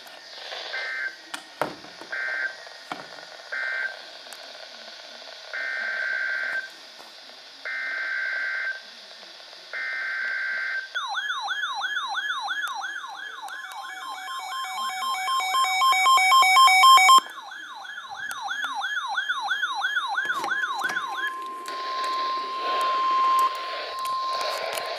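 NOAA Weather Radio EAS alert tones over radio static. First come three short digital data bursts, then three longer ones: the SAME data header sent three times. About 11 seconds in, a fast-warbling alarm starts together with steady alert tones and grows louder; the warbling stops about ten seconds later, and a single steady warning tone carries on over the hiss.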